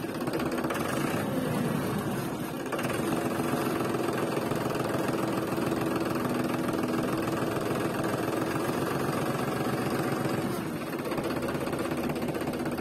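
Mini tractor's engine sound running steadily with a fast, even chugging rhythm, dipping slightly about two and a half seconds in and again near the end.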